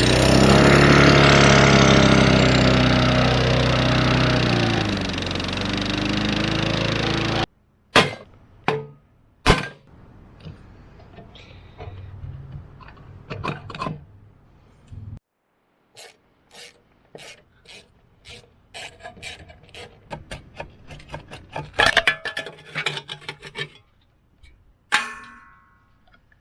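Briggs & Stratton 125cc lawnmower engine running loud, its pitch rising and then easing back down, until the sound cuts off abruptly about seven seconds in. After that come scattered sharp clicks and knocks, one burst after another.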